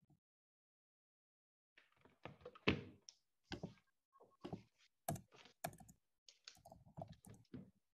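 Faint typing on a computer keyboard: a run of irregular keystrokes and clicks that starts about two seconds in.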